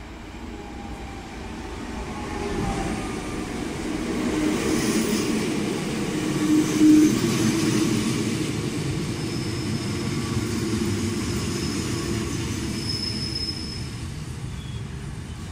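Renfe UT 450 double-deck electric multiple unit pulling into a station platform and slowing. Its running noise builds over the first few seconds and is loudest about 7 seconds in, and a thin high squeal runs through much of the second half as it slows.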